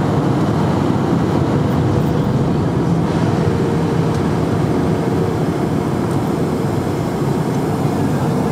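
Steady cabin noise inside a Boeing 757-200 taxiing after landing: the engines at idle and the airframe making an even low rumble, with a faint steady hum in it.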